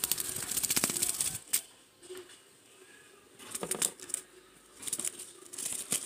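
Quick scratchy ticks and scrapes on the cardboard of a shoebox: a dense rapid run of them for the first second and a half, then a few shorter clusters later.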